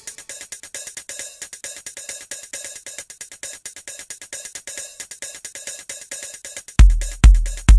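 Background electronic dance music. A stripped-down passage of fast hi-hat ticks gives way, near the end, to a heavy kick-drum beat coming back in.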